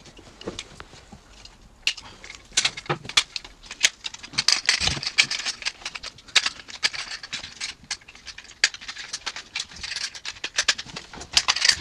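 Plastic parts of a transforming robot toy clicking, snapping and rattling as they are folded and locked by hand, turning the robot into a fire truck: many irregular sharp clicks, busiest in the second half.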